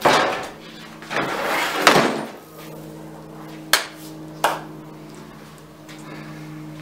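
Old wooden garage door being pushed out of its opening and falling flat onto the driveway: a loud knock at the start, a rushing scrape, then a heavy wooden slam about two seconds in, followed by two sharp knocks. A steady low hum runs underneath.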